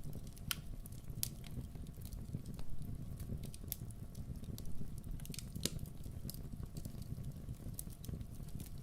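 Campfire burning: wood crackling with sharp, irregular pops about once or twice a second over a low, steady rumble of flame.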